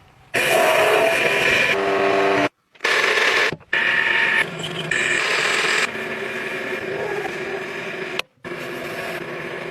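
Metal lathe machining noise: a loud, steady, shrill running sound with several held tones, broken off abruptly three times.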